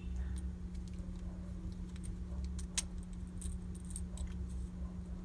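Light plastic clicks and rattles from a hard-plastic action figure and its gun accessory being handled, scattered and faint, over a steady low hum.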